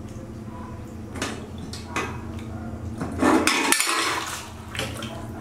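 Water splashing in a plastic basin as a baby macaque paddles and scrambles out over the rim, with knocks against the basin and the loudest burst of splashing about three seconds in.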